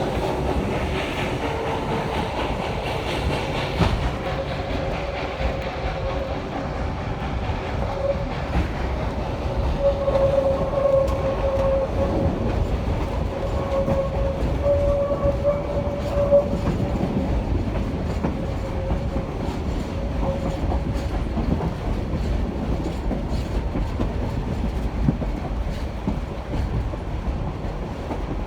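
Passenger train running along the track, a steady rumble with the clickety-clack of wheels over rail joints. A wavering tone comes and goes through the middle stretch.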